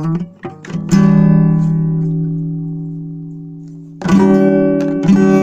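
Guitar playing a quick run of picked notes, then a strummed chord left ringing and fading for about three seconds, then two more chords about a second apart.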